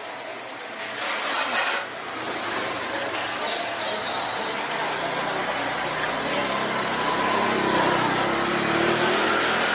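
Egg-and-cabbage omelette patties sizzling on a flat griddle while a metal spatula scrapes under them to flip them, the scraping strongest about a second in. A low steady hum joins about halfway through, with faint voices behind.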